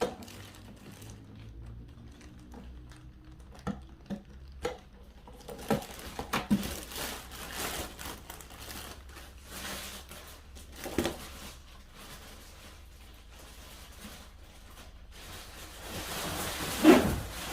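Plastic packaging being handled: scattered clicks and knocks at first, then crinkling and rustling of plastic wrap, with a louder rustle near the end.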